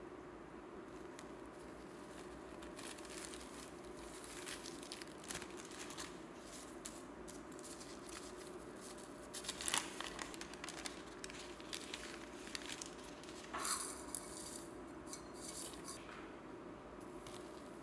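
Thin metallic foil leaf sheets and paper crinkling as they are handled and laid down, in faint irregular crackles with a couple of louder snaps. A faint steady hum runs underneath.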